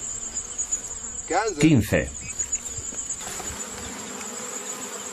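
Insects buzzing in a steady, unbroken high-pitched drone.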